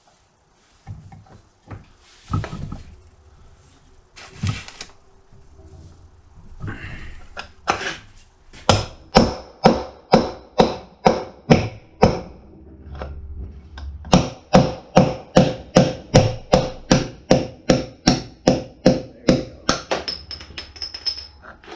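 Hammer striking a punch to drive a worn-out bearing out of a Scag mower's front caster: a few scattered knocks, then a long run of quick, ringing metal-on-metal blows, about two or three a second, with a short pause partway through.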